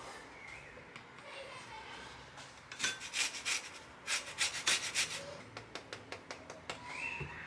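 Lemon grated against a small metal hand grater to take off the zest, in quick rasping strokes that begin about three seconds in. The strokes taper to lighter scrapes near the end.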